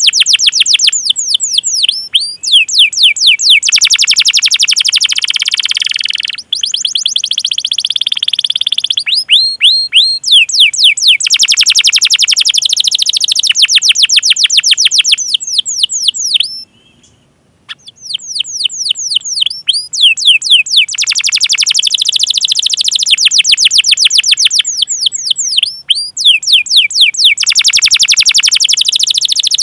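Domestic canary singing long runs of rapid, repeated sweeping chirps and rolling trills (the 'cuit cuit' call and 'ngerol' roll), with a brief pause a little past halfway.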